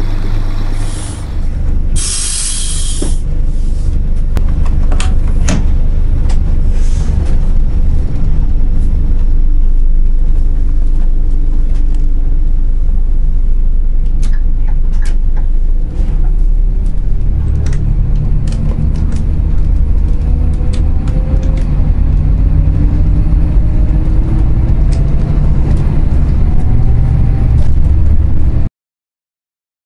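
Scania Omniexpress coach's diesel engine running, with a short burst of air hiss about two seconds in. Later the engine note climbs several times over as the coach accelerates through the gears, and the sound drops out shortly before the end.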